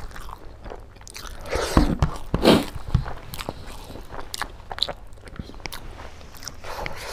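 Close-up eating sounds: a man biting and chewing pieces of pork curry eaten by hand, with wet mouth noises and small crunches, loudest in a cluster of bites about two seconds in.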